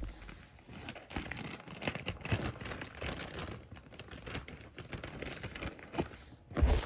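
A plastic bag being opened and rummaged through, with irregular crinkling and rustling and a louder thump near the end.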